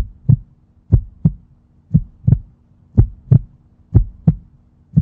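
Heartbeat sound effect: paired low thumps, lub-dub, about once a second, five beats, over a faint steady low hum. It starts abruptly.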